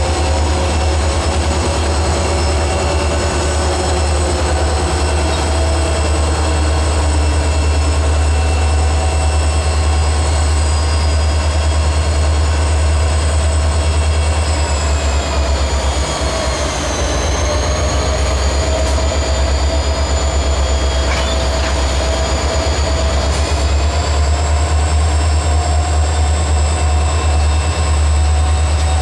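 Three EMD SD40-series diesel locomotives (two SD40-3s and an SD40-2), with 16-cylinder 645 two-stroke engines, running past slowly at close range. A deep steady drone lies under several high whining tones that drift slowly in pitch, dipping and rising again about halfway through.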